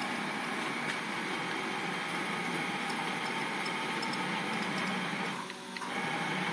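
DC servo motors of a home-built gantry CNC router, run through GeckoDrive G320X servo drives, jogging the axes: a steady quiet whir with a faint whine. The sound drops away briefly about five and a half seconds in, then picks up again.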